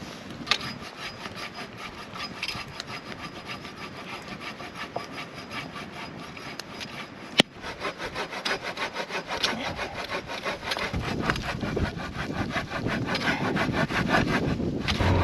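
Hand saw cutting through firewood in quick, even back-and-forth strokes. A sharp click comes about seven seconds in, after which the strokes are louder.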